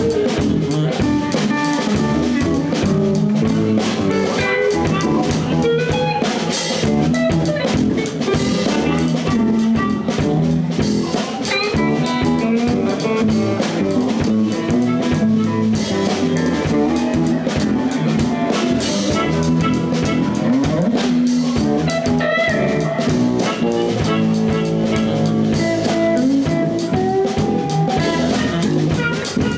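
Live blues band playing an instrumental passage: guitar over bass and a drum kit.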